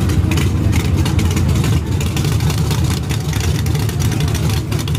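Drag race car engine idling loudly with a steady, fast-pulsing low rumble.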